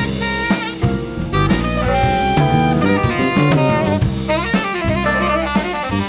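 Jazz-funk band playing live: a saxophone carries the lead line over drum kit and electric bass.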